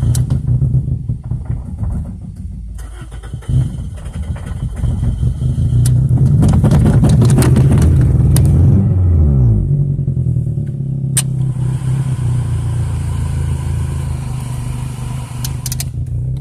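2002 Toyota Corolla's 1.8-litre four-cylinder engine running: it rises in pitch and level, falls back with a downward glide, then settles to a steady idle. It is an engine the owner calls bad and rough-running. There is a sharp click about eleven seconds in.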